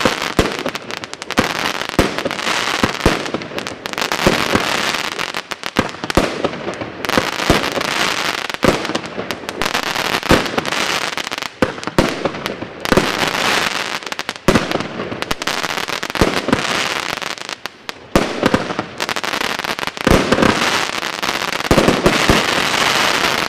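GBV-Weco G-Force 1000 firework cake firing a rapid, irregular series of shots, each breaking into dense crackling stars. The crackle runs almost without a break, with a few short lulls between volleys.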